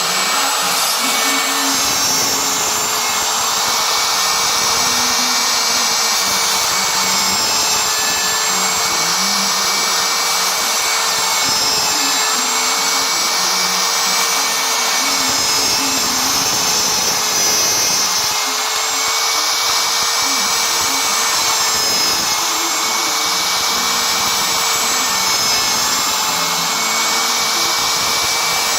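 CNC machine running: a steady loud whine and rush, with lower motor tones that shift in pitch and stop and start every second or two as the axes move.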